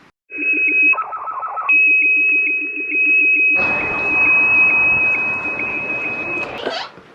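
HF amateur radio receiver audio: a steady high whistle of a carrier with pulsing lower signals under it. A loud rush of hiss joins about three and a half seconds in, and both cut off near the end.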